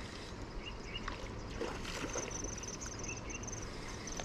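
Steady outdoor hiss of flowing river water and breeze. From about two seconds in, a high, rapid insect trill runs through it, with a couple of faint bird chirps.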